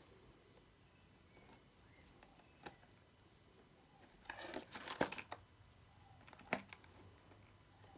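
Mini panettone packaging being torn open and crinkled: a short burst of tearing and crinkling about four to five seconds in, with a few sharp clicks before and after.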